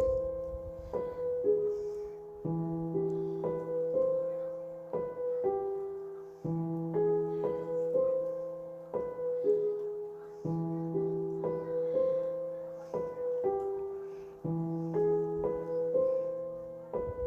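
Background piano music: a short melody of struck notes, with a phrase that repeats about every four seconds.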